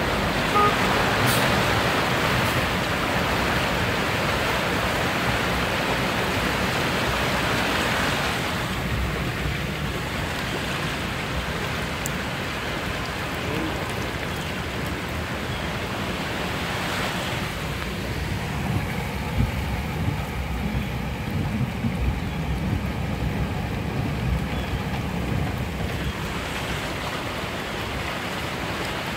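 King-tide floodwater churning and splashing across a street as cars drive through it, with tyre and road noise, a steady rushing that is loudest in the first eight seconds. Low rumbling bursts on the microphone come in about two-thirds of the way through.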